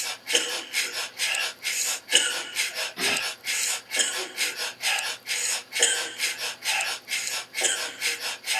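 A rhythm track built from coughing: short, rasping cough sounds repeating in a steady beat, about three a second.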